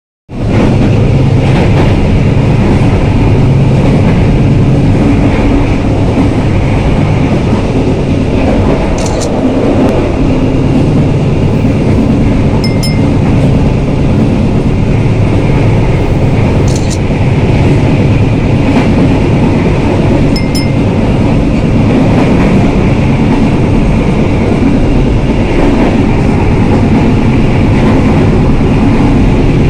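A passenger train running steadily, heard from aboard: a constant loud rumble of the carriage on the rails, with a few brief faint high ticks.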